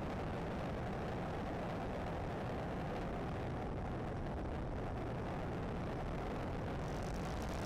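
Steady rush of airflow and engine noise on a camera mounted under a small high-wing plane with fixed landing gear, flying low over the runway on landing.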